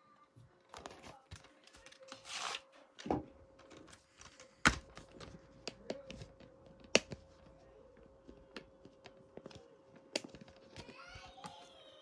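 A plastic DVD case being handled and opened: a brief rustle, then scattered sharp clicks and snaps, with a faint steady hum underneath.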